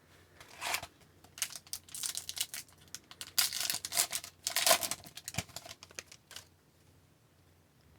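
A foil trading-card pack wrapper being torn open and crinkled while the cards are handled, in irregular rustling bursts that stop about six and a half seconds in.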